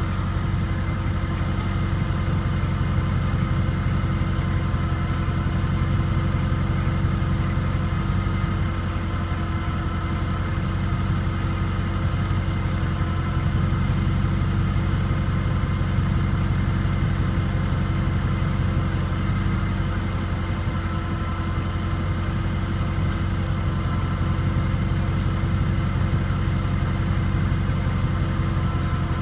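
Ram 2500 pickup truck engine idling steadily.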